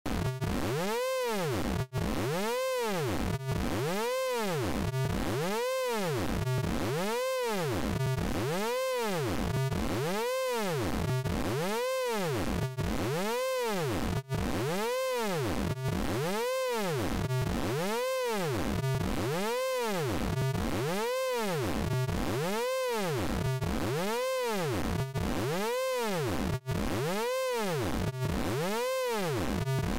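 Synthesized vocoder tone from the Orange Vocoder plugin, its pitch bending up and down over and over in an even, repeating pattern. It cuts out for an instant now and then.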